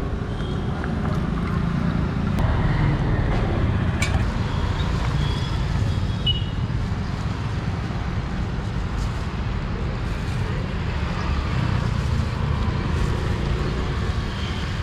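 Steady low rumble of road traffic, with a faint click about four seconds in.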